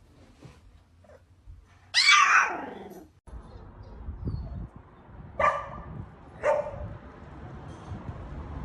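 A dog gives a loud yelp that falls in pitch over about a second, about two seconds in, then two short barks about a second apart.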